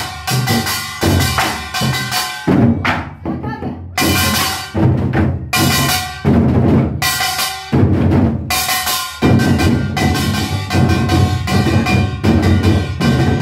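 Nanta drumming on Korean moduembuk drums: quick, loud drum strokes played over a backing music track with sustained tones.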